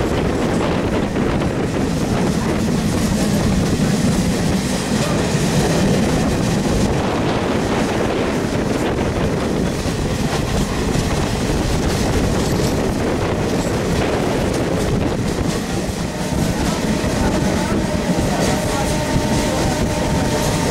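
A DEMU train running at speed, heard from inside the coach: a steady, loud rumble of wheels on the rails. A faint steady whine comes in over the last few seconds.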